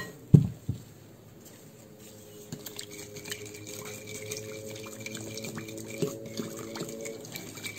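Plastic whisk beating egg yolks and water in a glass bowl: quick light clicks against the glass with liquid sloshing, starting about two and a half seconds in. A couple of knocks near the start.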